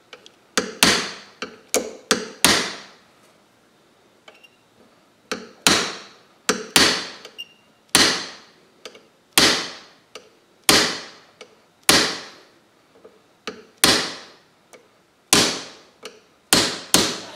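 A hammer tapping a brass punch to drift a HIVIZ fiber-optic front sight sideways into the dovetail of a Ruger 10/22 barrel. About two dozen sharp metallic taps, each with a short ring, come roughly half a second to a second apart, with a pause of about three seconds after the first six.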